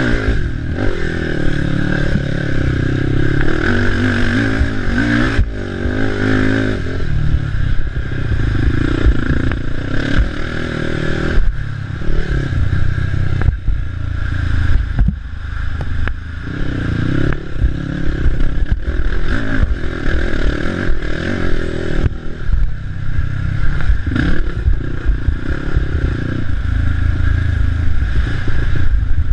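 A racing ATV's engine revving up and easing off again and again, with clattering knocks and scrapes over rough trail.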